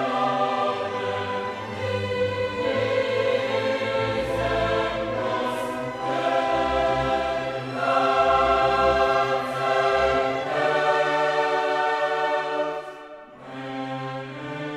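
Background music: a choir singing long held chords over an orchestra, in a classical style, with a brief drop in level near the end.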